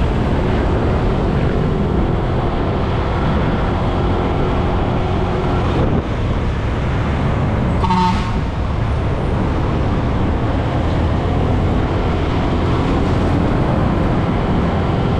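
Steady motorcycle engine, wind and road noise while riding through traffic, with a short horn toot about halfway through.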